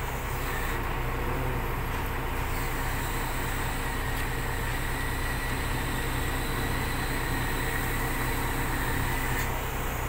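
Mobile crane's engine running steadily under load as it lifts a shipping container, with a faint high whine from about half a second in until near the end.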